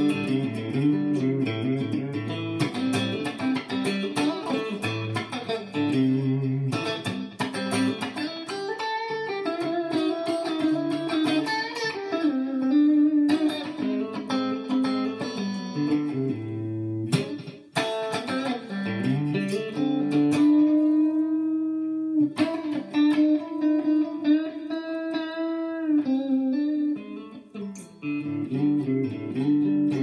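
Clean electric guitar: a Raygun Relics Strat with Radioshop '63 single-coil pickups in the neck-and-middle position, with its quacky tone, playing chords and single-note lines. It runs through a Line 6 Helix Fender Deluxe Reverb amp model with a very low-gain Klon, a touch of compression and some delay. There is a short drop about 17 seconds in, then a few long held notes.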